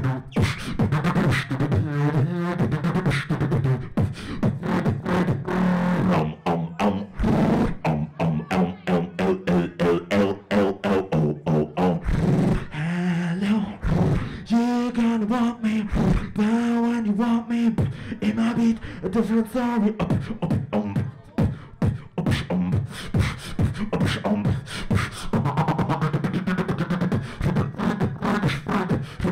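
Solo human beatboxing into a handheld microphone: a fast, continuous beat of mouth-made drum sounds over a low held bass tone. Pitched vocal tones are layered over the beat, a stepping melody in the middle stretch.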